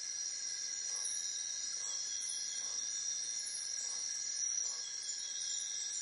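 Steady, high-pitched insect chorus, like crickets or cicadas, with faint lower pulses repeating about once a second.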